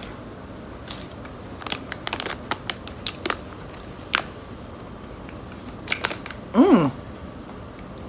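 Plastic candy bag crinkling and rustling in scattered short bursts as it is handled and a sour gummy ribbon is taken out. About two-thirds through comes a short vocal sound that slides down in pitch, louder than the crinkling.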